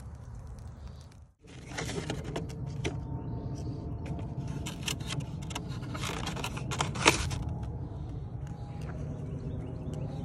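A plastic egg carton being handled and opened: a run of clicks, crinkles and snaps, the loudest snap about seven seconds in, over a steady low rumble.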